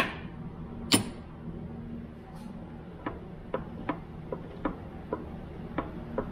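Opened-up 5-speed manual transmission of a 2006 Subaru Impreza worked by hand: two sharp metal clicks about a second apart as the shift selector is pushed to put it in gear. Then light metal ticks, about two a second, as the exposed shaft is turned and the gears rotate.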